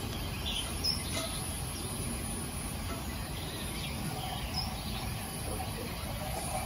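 Countryside ambience: a few scattered bird chirps over a steady low rumble and a steady high hiss.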